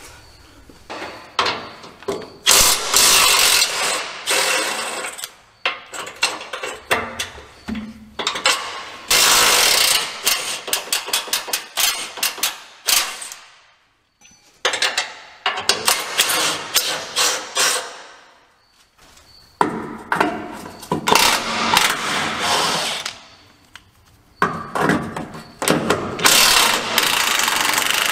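Cordless impact wrench hammering at bolts in repeated bursts of a few seconds each, with short gaps between, as bolts are run loose.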